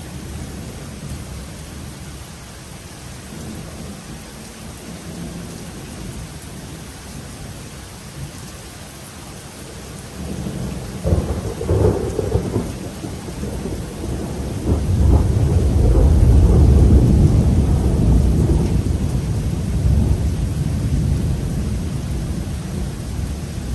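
Steady rain with a long, deep roll of thunder that starts about halfway through, builds to its loudest a few seconds later and slowly dies away.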